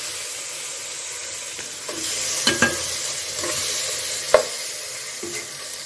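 Steel spoon scraping and knocking against an aluminium cooking pot as vegetable gravy is ladled in, with a few sharp clinks, the loudest about four seconds in, over a steady hiss.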